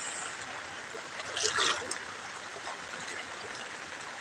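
Steady hiss of rain falling on shallow floodwater, with a short louder burst of water noise about one and a half seconds in.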